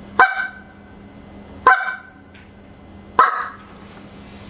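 Goose call blown in three single clucks about a second and a half apart. Each cluck is a short burst of air that breaks the reed and is cut off sharply.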